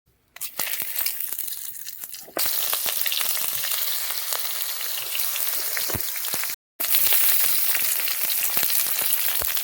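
Mutton sizzling and crackling as it fries in hot oil in a pan. The sizzle is softer at first, grows louder about two seconds in, and breaks off for a moment near the end.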